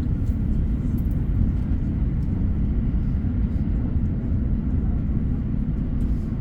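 Steady low rumble of a train in motion, with a few faint clicks.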